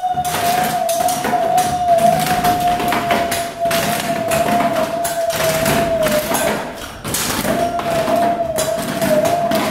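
Hands tapping and thumping on a rusty metal stair railing in an irregular rhythm. A steady, slightly wavering tone sounds over the knocks, breaks off about six seconds in and resumes a second later.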